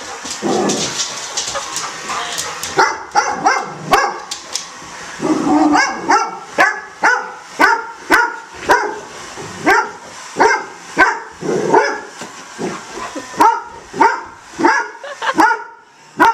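Golden retriever barking repeatedly at a running robot vacuum: a few uneven barks at first, then a steady run of short barks, just under two a second, from about six seconds in.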